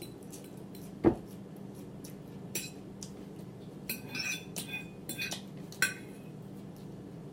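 A fork clinking and scraping on a plate of food, with a single louder thump about a second in.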